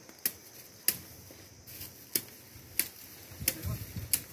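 About six sharp metal clicks at irregular intervals from surgical instruments being worked at the wound on an elephant's leg, with a brief low rumble near the end.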